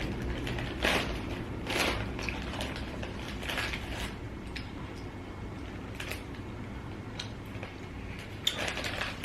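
A person chewing junk food close to the microphone: short mouth clicks and smacks about once a second at first, then more sparsely.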